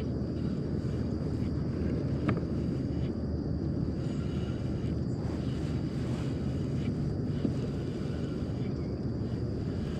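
Steady wind noise rumbling on the microphone outdoors, with one short click about two seconds in.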